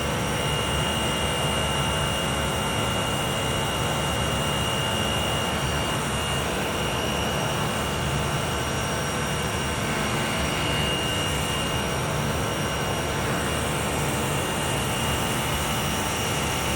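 Running chiller and plant-room machinery droning steadily, with a thin high whine held on one pitch.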